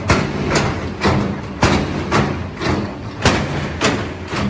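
An excavator strikes a concrete post again and again, about two sharp knocks a second, over the steady running of its diesel engine.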